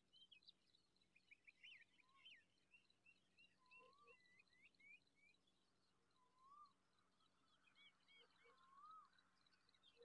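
Faint wild birdsong: many short, quick chirps and trills from small birds, with a lower rising-and-falling whistle repeated every two to three seconds.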